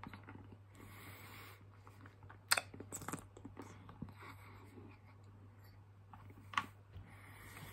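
Mouth noises from sucking a hard lollipop held in the mouth: a few wet clicks and smacks, sharpest about two and a half seconds in and again near the end, between soft breaths.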